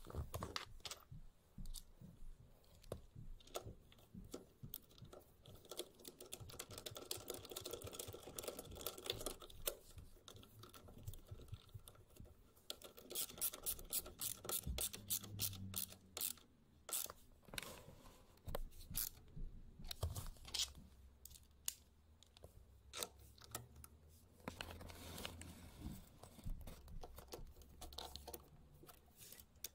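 Hands working on small parts: irregular clicks, taps and scraping, densest a little past halfway, with a faint steady low hum in the second half.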